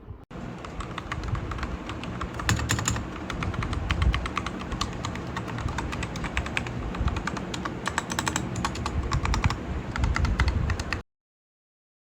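Typing on a mechanical keyboard fitted with KTT Kang White v3 linear switches: a rapid, uneven stream of keystrokes that cuts off suddenly near the end.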